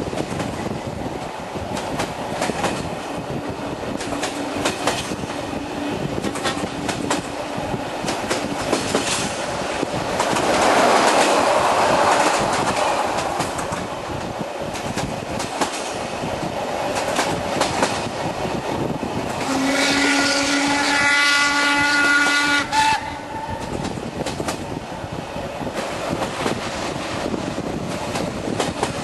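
Train of the steam locomotive BDZ 46.03 running on rails, wheels clattering over the rail joints, with the noise swelling about a third of the way in. About two-thirds through, a whistle sounds once for about three seconds.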